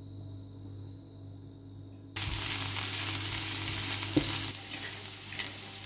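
Sliced onion sizzling in hot oil in a frying pan while a wooden spatula stirs it, with a couple of light knocks. The sizzle starts suddenly about two seconds in, after a quieter stretch with a low hum.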